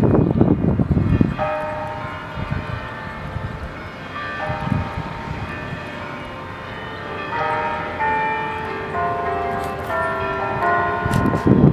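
Church bells ringing a run of different notes, one after another, in a tune-like sequence. A low rumble covers the bells for about the first second and comes back near the end.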